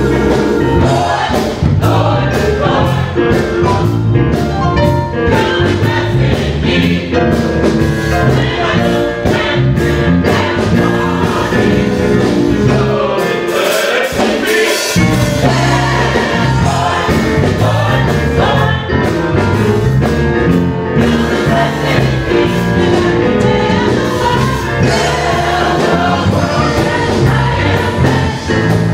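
Gospel choir singing with instrumental backing. The low bass notes drop out briefly about halfway through.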